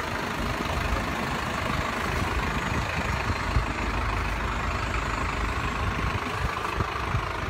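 Steady rumble of road traffic: vehicle engines running and idling at a street crossing.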